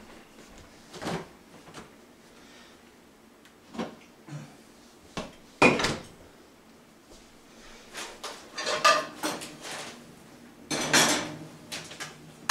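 Scattered knocks and clatter of kitchen things being handled and set down on a counter, with drawer or cupboard sounds among them. There are single knocks early on, the loudest about six seconds in, and a busier run of clatter near the end.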